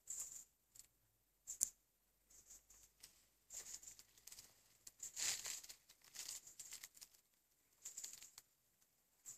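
Badger chewing apples: faint, irregular crisp crunches and rustles in uneven clusters, with one sharper crack about a second and a half in and a denser run of crunching in the middle.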